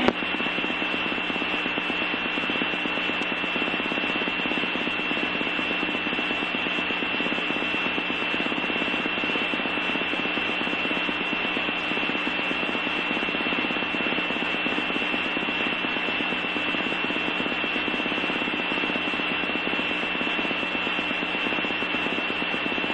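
Steady static hiss on an open fire-dispatch radio channel between transmissions, with a thin constant high whine and a low hum beneath it.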